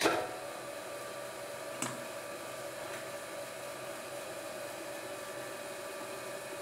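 Myford lathe running steadily, its electric motor and belt-driven spindle spinning the chuck with a steady hum. It starts abruptly right at the beginning, and there is one brief knock about two seconds in.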